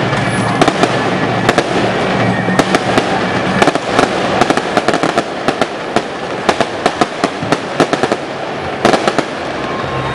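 Fireworks going off in rapid, irregular succession: many sharp bangs and crackles from aerial shells bursting overhead and strings of street firecrackers, with no let-up.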